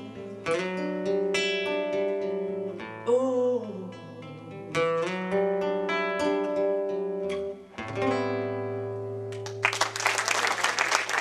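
A man singing to his own fingerpicked acoustic guitar, the song closing on a held final chord. Audience applause breaks out near the end.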